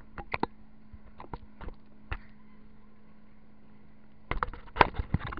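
Irregular muffled knocks and thumps from a camera bouncing on an inflatable tube towed behind a boat over wake water, with a faint steady hum underneath. The knocks come thick and loud near the end.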